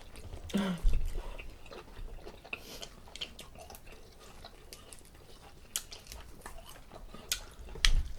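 Close-up eating sounds: chewing with scattered sharp clicks and cracks as crab legs from a seafood boil are eaten.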